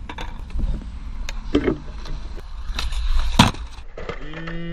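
Skateboard wheels rolling on paving with a series of clacks and knocks from the board, the loudest about three and a half seconds in. Near the end a man's voice sounds briefly.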